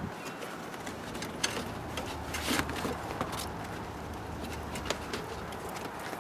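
Plastic vapor-barrier sheet being handled and pressed back onto the inside of a car door: scattered light taps and short crinkles, over a low steady hum.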